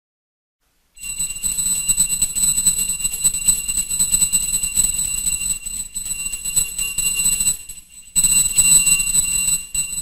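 Sportsman brass dog bell, a small brass bell on a handle, shaken hard so its clapper strikes rapidly and it rings with a high, steady ring. The ringing starts about a second in, pauses briefly near eight seconds, resumes, and then cuts off suddenly.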